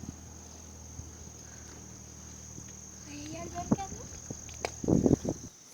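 Insects chirring in a steady high drone. A faint distant voice comes in about three seconds in, and a loud short rustle follows near the end.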